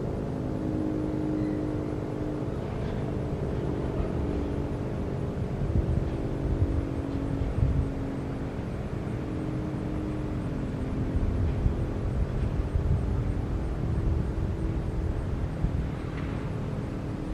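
Federal Signal 3T22A three-tone siren coasting down after its blast: a low chord of several tones slowly sinking in pitch, over a steady low rumble.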